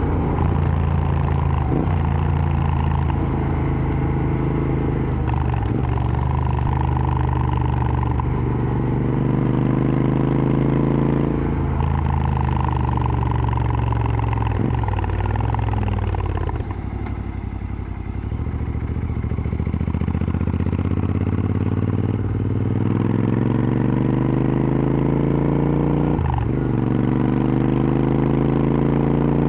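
Royal Enfield Interceptor 650 parallel-twin with an aftermarket exhaust, ridden hard: the engine note climbs repeatedly with short breaks at the gear changes. About halfway through the throttle is rolled off and the note falls, then it pulls up through the revs again, with more shifts near the end.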